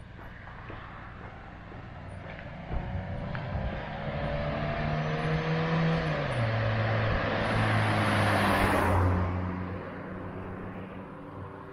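A motor vehicle passes close by. Its engine note climbs slightly, then drops in pitch about six seconds in, and the noise swells to its loudest near nine seconds before fading away.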